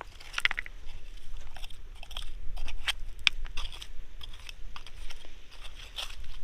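Irregular crunches and sharp clicks of loose stones and shells on a rocky shore, being moved or stepped on during a search for crabs. A steady low rumble runs underneath.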